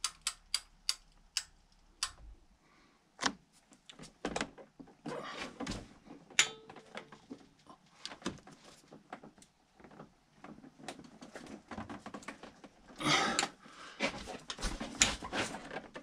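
A ratchet wrench clicking in short runs as its handle is swung back between pulls while the crankshaft bolt is angle-tightened, with scattered metal knocks and tool handling. The clicks are quick near the start, and a denser clatter comes about thirteen seconds in.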